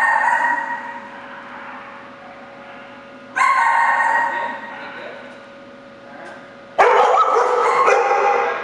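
Dog barking in a shelter kennel row, three loud bursts about three and a half seconds apart, each echoing off the hard walls as it fades.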